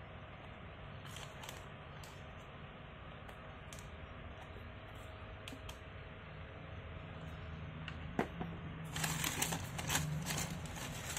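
Tissue paper crinkling and rustling as hands handle a football boot in its shoebox, loudest and densest near the end; scattered light clicks and taps come before it.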